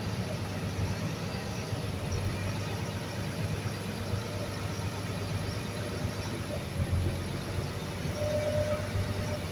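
A river ferry's engine running steadily under way: a constant low rumble under an even rushing noise of the boat moving through the water.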